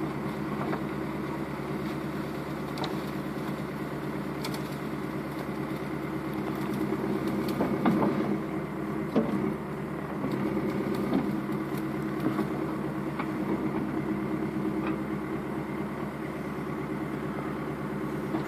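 Backhoe engine running steadily, with scattered knocks and clanks a few times.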